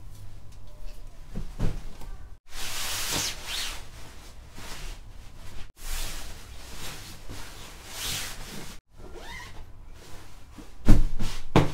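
Large cushion and its fabric cover rustling and swishing as they are handled and worked together, the sound cutting off abruptly a few times. A few soft thumps of the cushion near the end.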